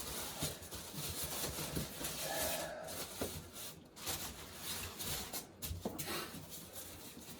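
Cardboard and packing material rustling and knocking as a big statue box is handled, with scattered small clicks. A short pitched sound, like a brief grunt, comes about two and a half seconds in.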